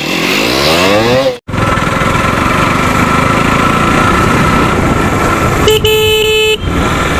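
Motorcycle engine revving up, its pitch rising for about a second before a sudden brief cut-out, then steady engine and road noise while riding. A vehicle horn sounds once, for about a second, near the end.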